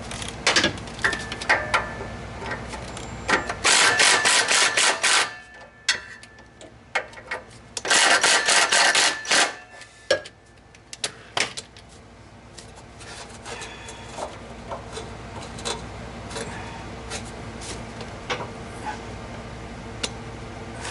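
Ratchet socket wrench clicking rapidly in two runs of about a second and a half each, a few seconds apart, as nuts are run onto the exhaust flange bolts. Light metal clinks and handling knocks come in between.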